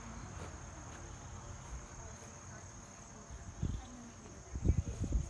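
Crickets or similar insects trilling steadily in a high, unbroken drone, with a low rumble and a few dull low thumps in the second half.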